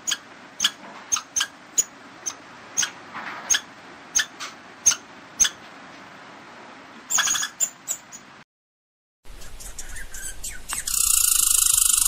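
Short, sharp squeaky chirps, repeated about twice a second for the first five seconds, then a brief rasping burst. After a short break, a loud, steady, high insect buzz sets in near the end and is the loudest sound.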